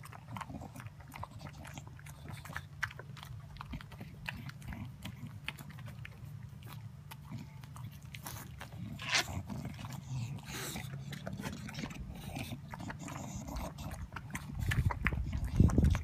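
English bulldog licking and chewing homemade dog ice cream off a wooden deck: dense, irregular wet smacking and lapping clicks over low snuffling, growing louder near the end.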